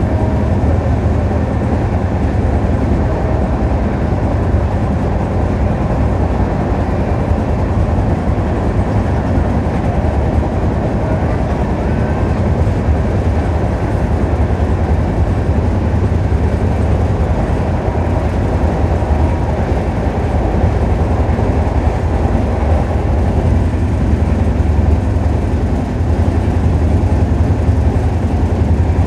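Inside an Indian Railways LHB passenger coach running at about 100 to 108 km/h and still picking up speed: a steady, heavy low rumble of wheels and bogies on the track.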